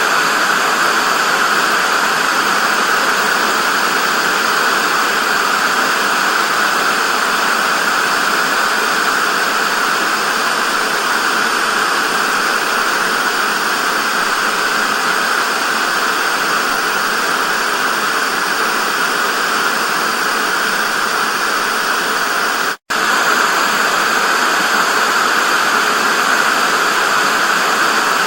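TV static: a steady, loud hiss, strongest in the middle of the range and thin in the bass. It cuts out completely for an instant about 23 seconds in, then resumes unchanged.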